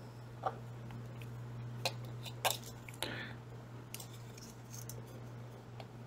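Quiet handling of AA batteries and a small plastic battery tester: a few light, sharp clicks and taps as a battery is picked up and pressed onto the tester's contacts, over a faint steady low hum.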